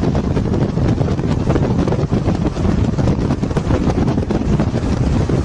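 Heavy wind buffeting the microphone over steady road and tyre noise, recorded from a vehicle moving at speed.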